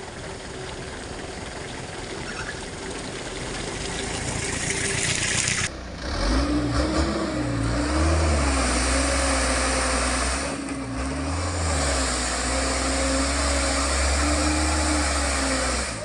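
Mitsubishi Fuso truck's diesel engine labouring under a heavy load of palm fruit as the truck fights for grip in deep mud. It grows steadily louder for the first few seconds. After a break about six seconds in, it runs loud and close, its revs rising and falling.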